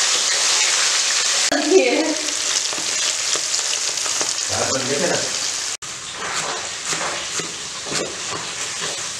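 Fish pieces deep-frying in hot oil in an iron kadai, a steady sizzle. In the last few seconds a knife chops greens on a wooden board, a run of quick, regular taps.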